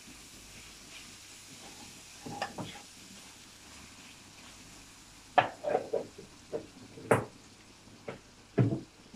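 Noodles and onions frying in a pan on a gas stove with a faint sizzle, while a metal spatula scrapes and knocks against the pan. The knocks bunch up in the second half, the sharpest clink coming a little after seven seconds.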